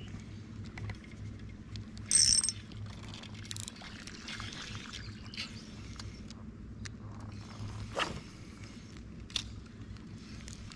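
Small spinning reel being cast and wound in: a short burst about two seconds in as the cast goes out, then the reel's gears and bail clicking as the handle is turned, with a couple of sharper clicks near the end.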